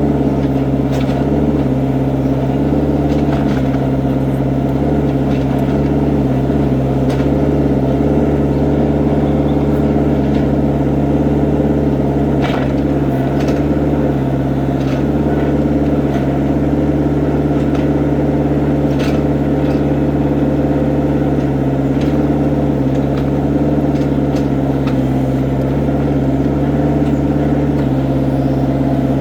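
Excavator's diesel engine running steadily under work, with occasional short sharp clanks.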